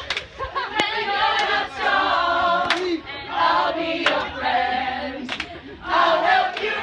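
A group of young men and women singing a team song loudly together in unison, with a few sharp claps now and then.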